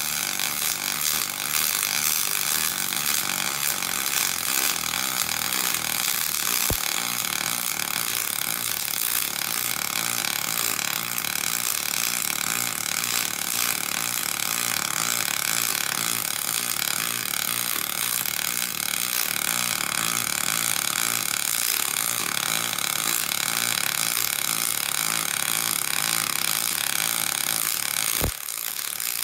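Double-pulse MIG welding arc laying 5356 aluminum wire onto an aluminum piston from a Stel Iron MIG 303SP push-pull gun: a steady hiss with a fast, even throb from the double pulse. The arc breaks briefly about a second before the end.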